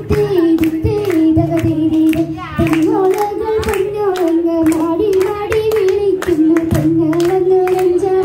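A girl singing a vanchipattu, the Kerala boat song, into a microphone in a wavering melody, with hands clapping a steady beat in time.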